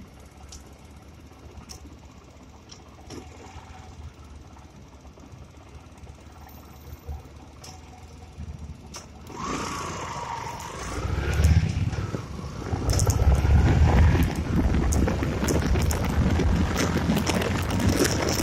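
Yamaha Gladiator's 125 cc single-cylinder four-stroke engine, low and quiet at first, then pulling away and accelerating about halfway through, its note rising in pitch. Wind rumble on the phone's microphone grows loud as speed builds.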